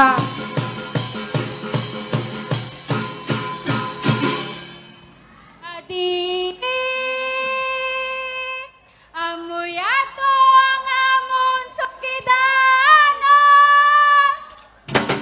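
Festival music with a steady pounding beat fades out over the first four seconds or so. A woman then sings solo into a microphone in two phrases of long held notes, sliding up into them. Loud beating music starts again right at the end.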